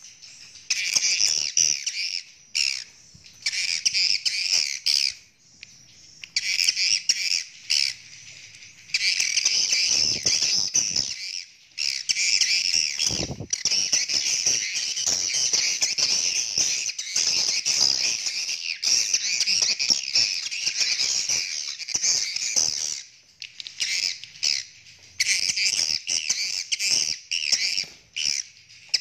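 Swiftlets chattering in rapid, buzzy trilling runs of several seconds, broken by short pauses: the mating calls of birds in breeding condition.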